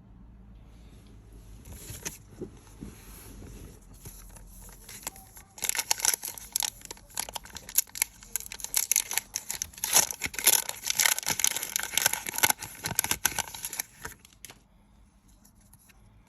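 Foil Pokémon booster pack wrapper being handled, then torn open and crinkled. Light rustling for the first few seconds, then a dense run of crackling and tearing from about five seconds in until near the end.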